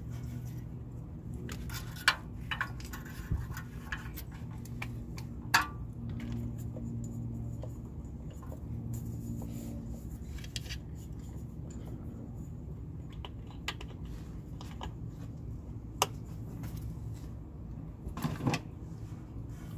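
New spark plug wires being handled and their boots pushed onto the spark plugs of an 8.1 Vortec V8: light rustling and a few sharp clicks, the sharpest about two and five seconds in, then one near sixteen seconds and a short cluster near the end. A steady low hum runs underneath.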